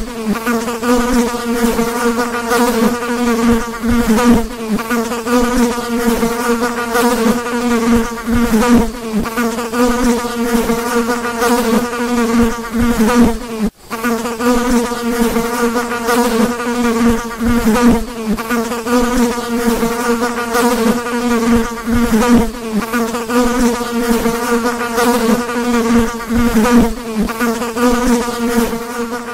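A fly's wings buzzing: a continuous drone, slightly wavering in pitch and loudness, broken once by a short drop-out about halfway through.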